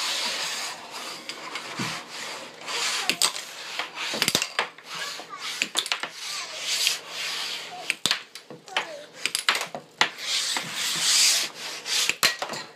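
Air hockey play: plastic pucks sliding over the table with a hiss and clacking sharply against the rails, mallets and plastic obstacles, many knocks in quick irregular succession.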